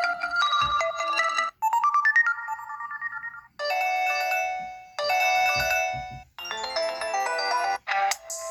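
HTC phone ringtones played back to back: about half a dozen short electronic melodies, each cut off after one to two seconds, some with a brief silence before the next one starts.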